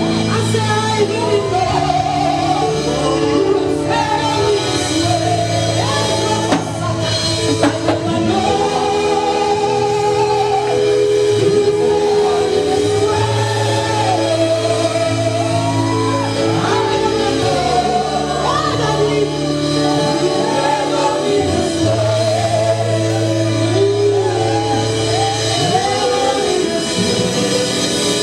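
Live gospel worship music: singing over a band with bass, guitar and drums, played at a steady, even loudness.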